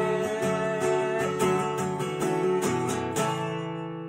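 Acoustic guitar strummed in a steady rhythm, closing the song on a final chord a little after three seconds in that rings on and fades.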